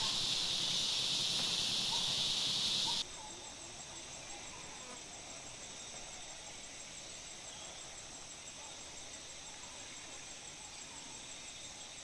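Dry-season forest ambience. A dense, high insect hiss cuts off suddenly about three seconds in, leaving a quieter scene with a steady, high, finely pulsing insect trill and faint distant bird chirps.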